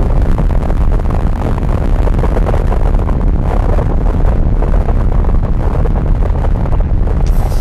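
Science-fiction spaceship sound effect: a loud, steady, deep rumble with a rough noise above it, and a brighter hiss coming in near the end.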